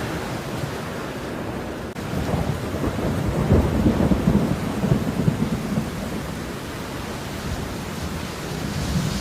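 Steady falling rain with a low rumble of thunder that swells about two seconds in, peaks around the middle and fades away.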